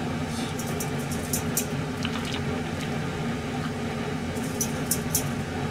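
A steady low mechanical hum, like a fan or motor, with a few light clicks about a second in and again near the end.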